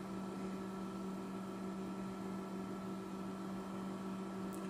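Steady electrical hum made of a few constant tones, with one faint short tick near the end.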